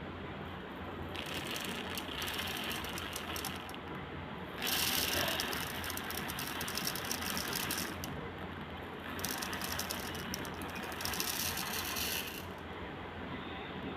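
Raw rice grains rattling and rustling as a dense stream of tiny clicks, coming in stretches of a few seconds, with a louder spell about five seconds in.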